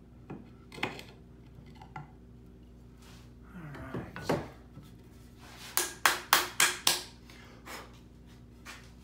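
A chisel paring inside a wooden mortise, with a few light clicks and scrapes. This is followed by a scraping shuffle of the workpiece on the bench and, about six seconds in, a quick run of five sharp wooden knocks.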